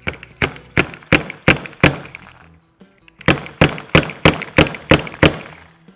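Slide-hammer fork seal driver hammered down a fork tube, knocking a new fork seal into a 39 mm Harley-Davidson fork lower. Two runs of about seven sharp metal strikes each, roughly three a second, with a pause of under a second between them.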